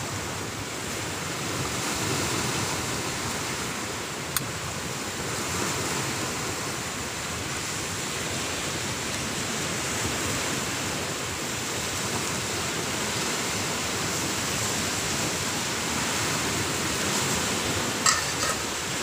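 Ocean surf breaking steadily, a continuous rushing noise that swells and eases every few seconds. A sharp click about four seconds in, and a few light metal clinks near the end as a pot lid is handled.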